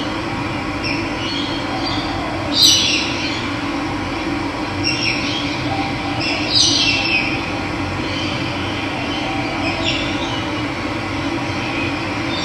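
Steady rush of running water with a bird giving short descending calls about four times, the loudest about two and a half seconds in.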